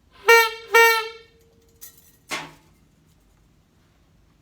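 Trumpet blown in two short toots on the same high note, the second trailing off briefly. A short knock follows about two seconds in.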